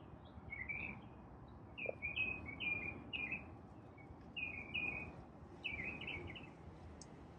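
Small birds chirping: short, quick chirps in clusters of two or three, repeating throughout, over a faint steady outdoor hiss.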